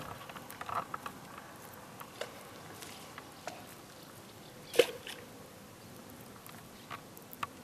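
Faint outdoor ambience: a low steady hiss with scattered small ticks and clicks, one sharper click about five seconds in.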